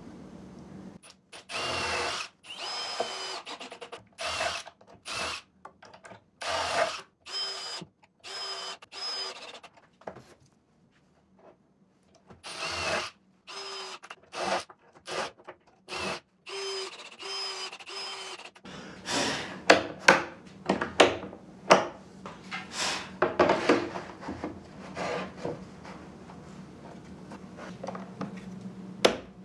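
Power drill running in many short bursts of a second or less, each a steady whine at the same pitch, with pauses between them. About two-thirds of the way in come louder, sharper, noisier bursts.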